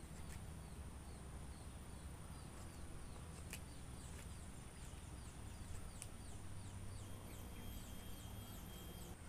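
Forest ambience: insects droning steadily at a high pitch, with a quick run of short falling chirps and a second high tone joining near the end. A few sharp clicks come from a folding knife cutting into a wooden stick.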